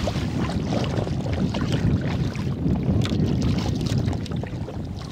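Wind rumbling on the microphone over water splashing and lapping around a kayak, with short scattered splashes.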